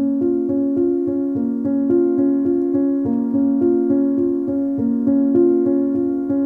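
Background music: a gentle keyboard tune of evenly paced notes over held lower tones.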